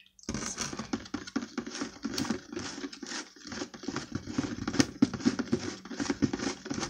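Spoon stirring quickly in a small plastic bowl of watery glue slime mixture: a rapid, continuous run of scraping and clicking against the bowl that starts a moment in.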